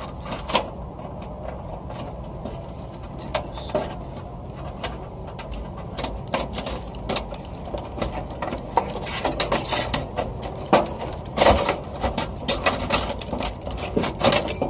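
Irregular clicking and clinking of hand tools and metal parts being handled, sparse at first and much busier in the second half, over a steady low hum.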